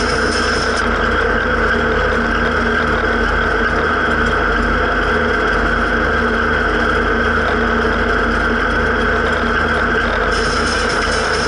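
Zetor 7340 tractor's four-cylinder turbo diesel engine running steadily while driving on the road, heard from inside the cab.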